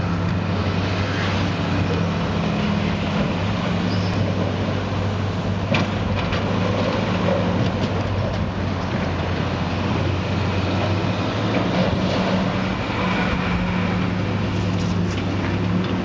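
Demolition machinery running: a steady engine drone with a few sharp knocks now and then.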